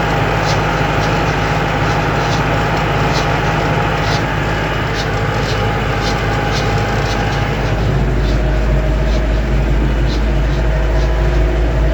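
Lovol M504 tractor's diesel engine and transmission running under way at over 25 km/h, with a sharp click repeating about once or twice a second over the steady drone: the unexplained gearbox noise that shows up above 25 km/h. About eight seconds in the engine note shifts and a heavier low rumble comes in.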